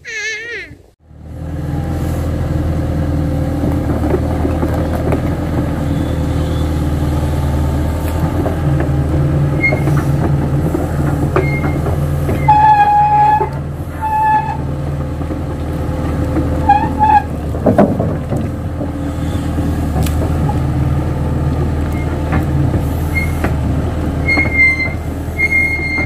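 A Kato crawler excavator's diesel engine, which comes in about a second in and then runs steadily. A few short high tones sound over it, most clearly twice around the middle.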